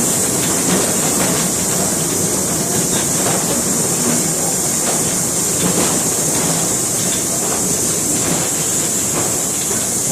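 Narrow-gauge train running along the track: a steady rumble and hiss, with irregular clicks of the wheels over the rails.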